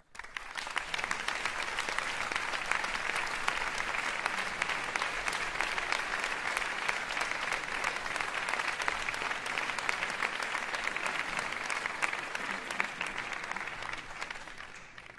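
A concert-hall audience applauding: steady, dense clapping that fades away near the end.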